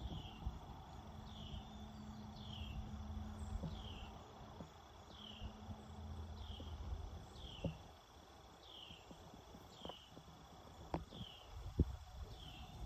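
A small bird repeats a short, falling chirp about once every second, steady and unhurried. Behind it run a faint, steady high insect drone and a low rumble.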